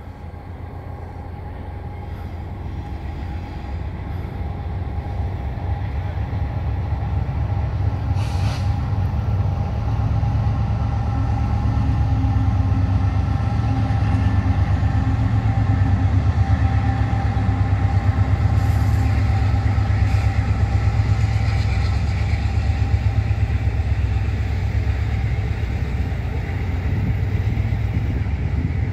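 Norfolk Southern intermodal freight train rolling past: a heavy low rumble with a fast, regular pulsing that builds louder over the first dozen seconds and then holds. A couple of brief high hisses cut through, one about eight seconds in and another near nineteen seconds.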